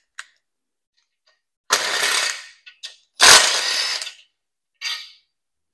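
Cordless power tool run in three short bursts, the second the loudest, spinning factory bolts out of a small-block Chevy engine block.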